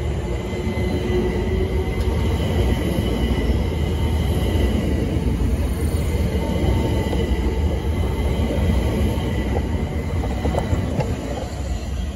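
London Overground Class 378 electric multiple unit running past along the platform, its wheels giving a loud, steady rumble on the rails with a thin high tone above it and a few clicks near the end.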